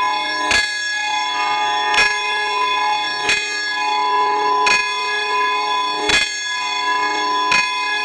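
Church bell struck six times at an even pace, about every second and a half, each stroke ringing on with many overtones into the next. The bell recording is run through an audio effect.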